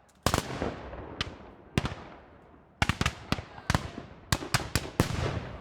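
War-zone ambience of scattered gunfire: about a dozen sharp shots at irregular intervals, some single and some in quick runs of two or three, each trailing off in a long echo.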